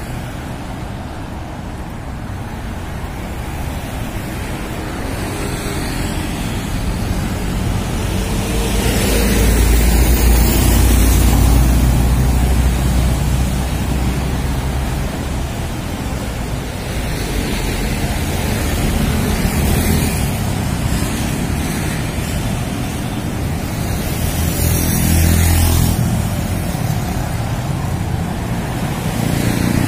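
Road traffic passing on a busy multi-lane street: cars and minibuses go by over a steady low rumble, swelling loudest about ten seconds in and again near twenty-five seconds.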